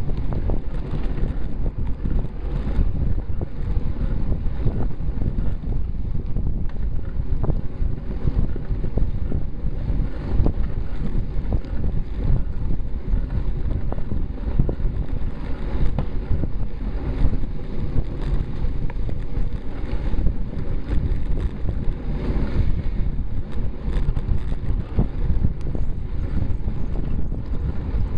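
Wind buffeting the microphone of a bicycle-mounted camera moving at about 15 mph: a loud, constant low rumble that flutters throughout, with no breaks.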